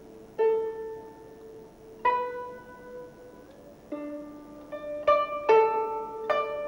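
Background music of slow, sparse plucked string notes, each ringing on and fading, with the notes coming closer together in the second half.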